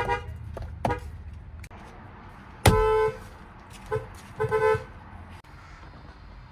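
Toyota Camry car horns honking in a series of short toots. The longest and loudest honk, about half a second long, comes about two and a half seconds in, and a quick double toot follows shortly after.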